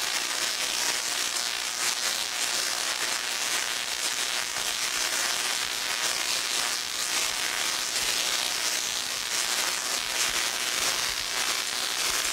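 Medium-sized spark-gap Tesla coil, fed by a 12,000-volt neon sign transformer, running at high power: its sparks crackle continuously at an even level as they stream sideways off the torus.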